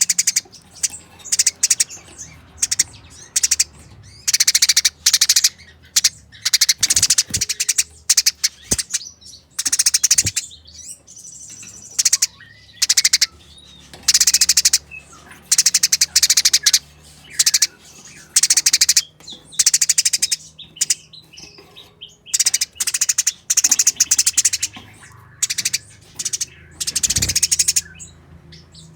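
Eurasian tree sparrows chattering as they fight: rapid, harsh runs of high-pitched chirps in stuttering bursts with short breaks between them.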